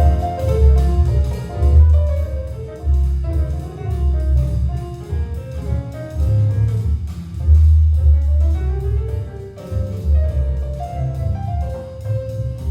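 Music with a heavy, pulsing bass line and melodic lines above it, played back through a Harman Kardon Luna portable Bluetooth speaker at 50% volume in a room.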